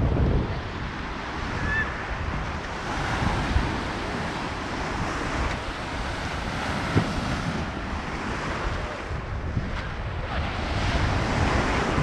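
Mediterranean surf breaking and washing up a sandy beach at the water's edge, with wind buffeting the microphone as a low rumble. The wash swells a few seconds in and again near the end.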